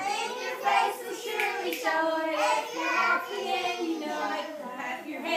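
Two young girls singing a song together, unaccompanied, their high child voices gliding through the melody.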